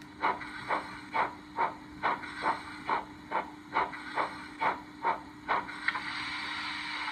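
DCC sound decoder playing a recorded Stanier 8F steam locomotive through a small speaker in the model's tender: steady exhaust chuffs about twice a second, and about six seconds in the chuffing stops and a continuous steam hiss takes over. A faint steady hum runs underneath.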